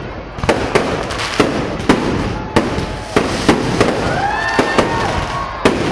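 Aerial fireworks display: shells bursting in a rapid, uneven run of sharp bangs, roughly one every half second, over a continuous noisy background.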